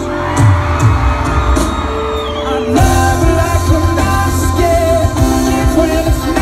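Live pop-rock band music with singing. A sustained swell builds, then about three seconds in the full band comes in, with heavy drums under a sung melody.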